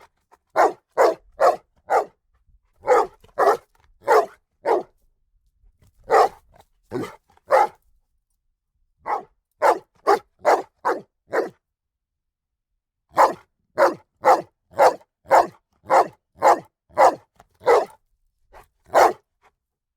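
A dog barking repeatedly in bursts of several short barks, with pauses of one to two seconds between bursts. The barking stops about a second before the end.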